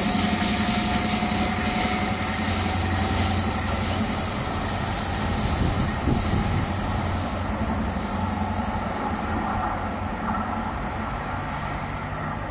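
Cross Country HST power car's MTU diesel engine running as the train pulls away, fading gradually into the distance, with a steady high-pitched squeal from the wheels on the curved track.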